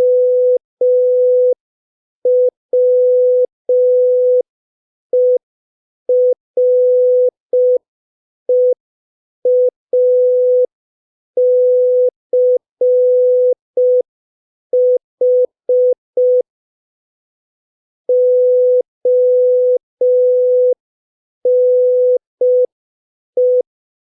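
Morse code practice tone at about 5 words per minute: a single steady beep near 500 Hz keyed on and off in short dits and longer dahs, with silent gaps between letters and a longer pause between words about two-thirds of the way through.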